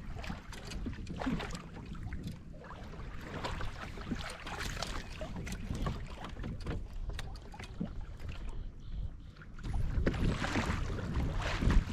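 Water sloshing and lapping against a kayak hull, with scattered small splashes and knocks, and wind rumbling on the microphone, louder near the end.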